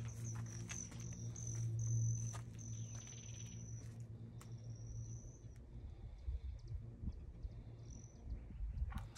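Outdoor ambience: a high, thin trill in stretches through the first half and once more about five seconds in, over a low steady hum, with a few faint clicks.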